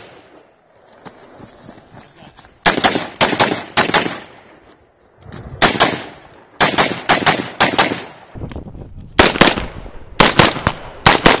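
Daniel Defense 16-inch AR-15 with a muzzle brake firing in fast strings: runs of two to five shots in quick succession, separated by pauses of a second or so as the shooter moves between targets.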